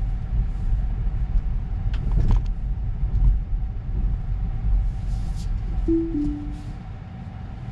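Low road and tyre rumble inside a Tesla Model 3's cabin, easing off after about six seconds as the car slows. About six seconds in, the car gives a short two-note falling chime.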